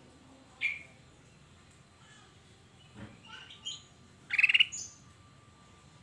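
Ruby-throated bulbul (kutilang emas) giving short, sharp chirps. There is one about half a second in, a few quick notes around three seconds, and the loudest, a brief burst of rapid notes at about four and a half seconds.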